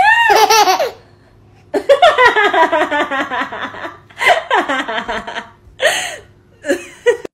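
A young child laughing in several bursts, quick pulsing runs of laughter with short breaths between, pausing for about a second near the start.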